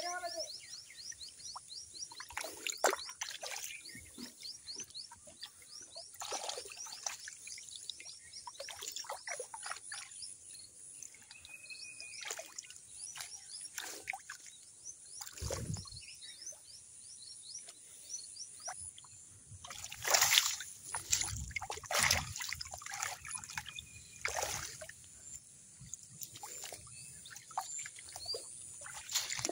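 Water splashing and sloshing in irregular bursts, loudest about two-thirds of the way through, over a steady high-pitched background chirring.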